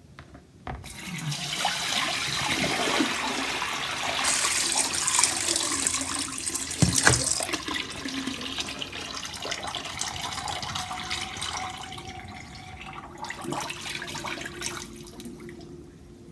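Water pouring and splashing as a bowl of soaking water is emptied into a sink. The rush starts about a second in, with a knock against the bowl about seven seconds in, and dwindles near the end as the bowl empties.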